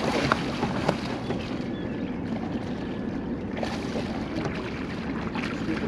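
A hooked catfish splashing at the surface beside the boat: a few short splashes in the first second, over a steady low rumble.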